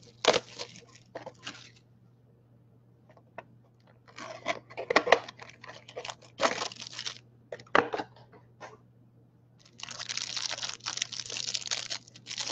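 A sealed box of football trading cards being unwrapped and opened: plastic wrapping torn and crinkled in several bouts with short pauses, turning into steady crinkling about ten seconds in.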